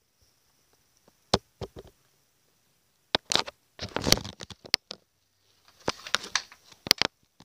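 Handling noise from a handheld recording device as it is moved about: short bursts of scraping, rubbing and taps, with quiet gaps between them.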